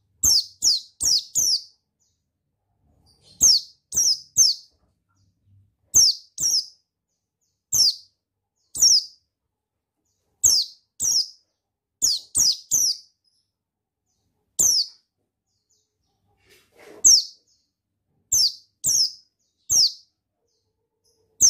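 Pleci buxtoni white-eye calling: short, high chirps that each drop in pitch, given singly or in quick runs of two to four, every second or two.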